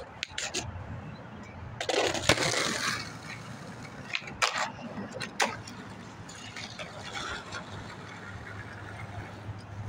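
Skateboard rolling on pavement, with a loud burst of rolling noise about two seconds in and several sharp clacks of the board around it. A low steady hum runs underneath.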